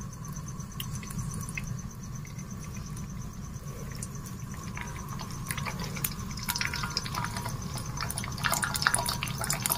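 An egg frying in hot oil in a wok: a soft sizzle with small crackles and pops, which come more often in the second half, over a steady low rush.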